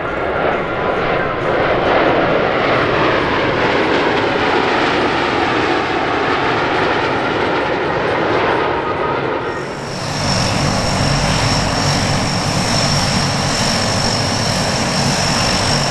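Blue Angels F/A-18 Hornet jets flying past in formation, a broad steady roar. About ten seconds in this cuts to a C-130H Hercules's four turboprop engines running, a lower drone with a steady high whine.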